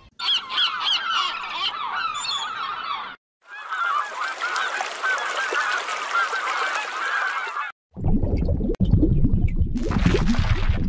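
A flock of waterfowl calling, with many overlapping honks in two stretches broken by a short gap about three seconds in. From about eight seconds in, a different sound with a low, rumbling noise takes over.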